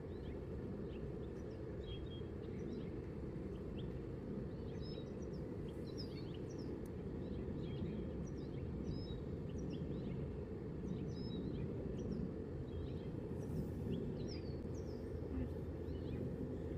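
Small birds chirping: many short, high calls scattered over a steady low background rumble.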